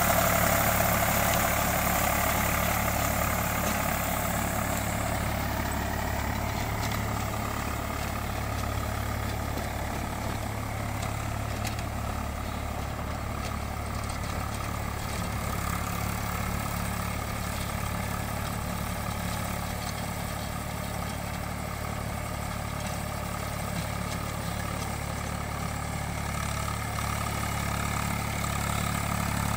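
Eicher 485 tractor's three-cylinder diesel engine running steadily under load, turning a rotavator to puddle a wet paddy field. It grows fainter over the first several seconds as the tractor drives away.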